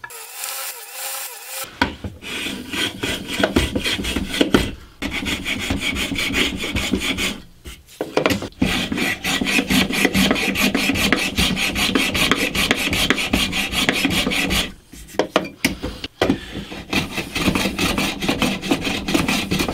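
Small hand tool scraped back and forth over a softwood block held in a bench vise, a quick run of rasping strokes on the wood. The strokes stop briefly three times: about 5 seconds in, around 8 seconds, and for about two seconds near 15 seconds.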